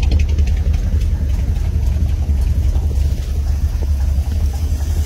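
Old pickup truck's engine idling on a cold start with a steady low exhaust rumble, its choke cable having fallen off.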